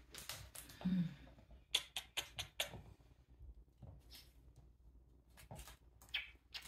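Kittens' paws and claws scampering on a hardwood floor as they bat at and pounce on a string toy: scattered light taps, skitters and scuffs, with a quick flurry about two seconds in.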